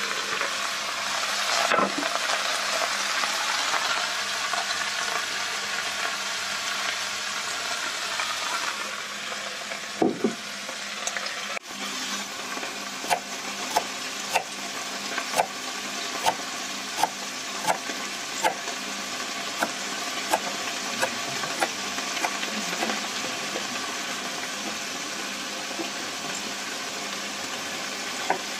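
Chopped onion, carrot and garlic sizzling in a steel pot, with two knocks about ten seconds in. After a sudden break, a kitchen knife chops fresh herbs on a wooden cutting board, a sharp chop a little more often than once a second, over a steady hiss.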